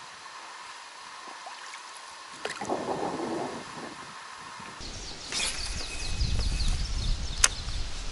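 Water gurgling around an inflatable packraft, with a short gurgle about two and a half seconds in. From about five seconds in, wind rumbles on the microphone, and a single sharp click comes near the end.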